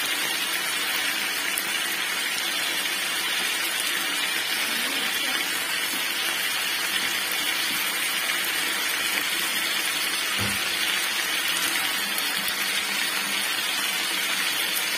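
Spiced chicken pieces frying in oil in a nonstick pan, a steady sizzle, with one soft knock about ten seconds in.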